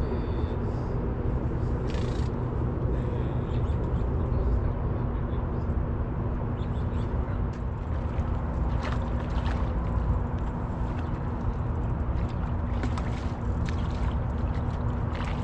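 Steady low rumble with a constant low hum in the background, broken by a few brief splashes as a hooked carp thrashes at the surface.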